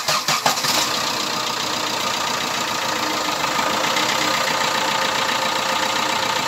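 Chevrolet Spin diesel engine just started, running unevenly for the first second, then settling into a steady idle.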